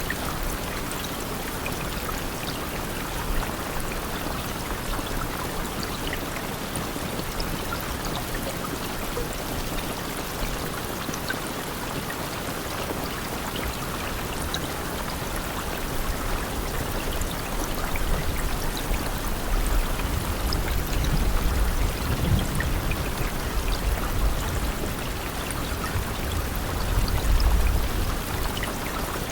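Steady rain falling, an even hiss of water with scattered individual drops. Low rumbles swell up twice, around twenty seconds in and again near the end.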